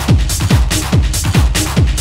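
Techno played on turntables in a DJ mix: deep kick drums dropping in pitch hit fast and even, about four a second, under hissing hi-hats.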